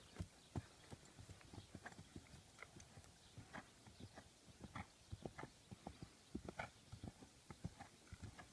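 Hoofbeats of a barefoot horse, its shoes just taken off, under a rider on hard, uneven grass ground: a faint, steady run of low thuds.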